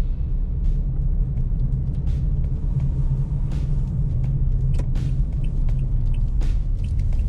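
A car driving slowly, heard from inside the cabin: a steady low rumble of engine and tyres on the road, with a few faint clicks.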